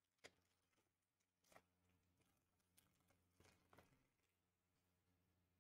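Near silence, with a few faint, short clicks and rustles of trading cards being handled and flipped.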